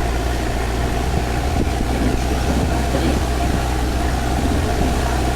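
Engine of a 4x4 off-road vehicle running steadily while driving over sand dunes, a continuous low drone with a faint steady higher tone over it.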